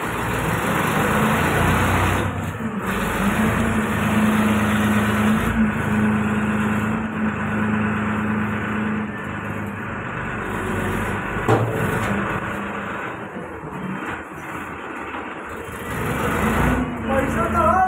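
Powertrac tractor's diesel engine running steadily, with one sharp knock about halfway through.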